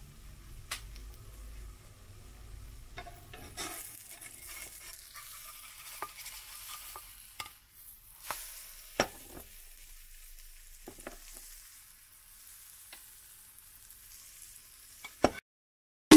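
Pancake frying in a ceramic-coated pan, a faint steady sizzle of the hot fat, with a spatula scraping and clicking against the pan as the pancake is lifted and turned. A few sharp taps stand out over the sizzle.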